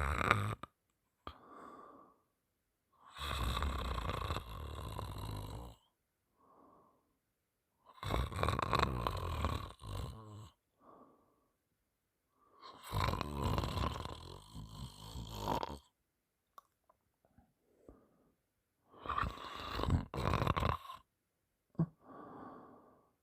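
A person snoring in sleep: four loud snores, each two to three seconds long and about five seconds apart, with fainter short breathing sounds between them.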